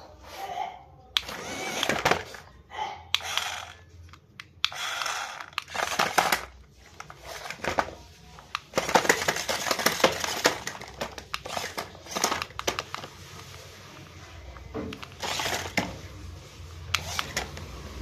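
Toy RC stunt car running in short bursts, its plastic body and wheels clattering and scraping on a hard floor as it flips and spins, with the longest and loudest stretch about halfway through.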